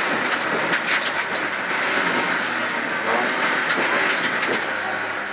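Inside a one-litre rally car's cabin at speed: the engine running hard under heavy, steady road and tyre noise, its pitch rising in places, with scattered clicks and rattles from the car.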